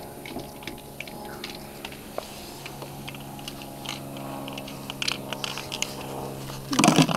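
Scattered light clicks and taps as a magnet-fishing rope and magnet are hauled in over a wooden pier railing, over a steady low hum. A brief louder burst of handling noise comes near the end.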